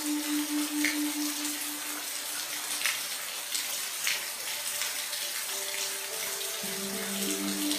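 Steady rain falling, a continuous hiss with a few sharper drops landing. Faint low steady tones sit underneath: one pulsing tone fades out about two seconds in, and a few new ones come in near the end.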